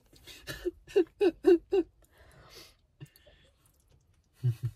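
A person laughing in about five short, quick bursts about a second in, followed by a breathy exhale and a brief low vocal sound near the end.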